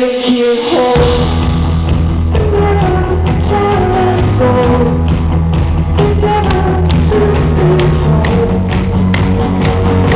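Live rock band with a male lead singer: a held vocal note over sustained chords, then the bass and drums come in about a second in and the band plays on under the sung melody.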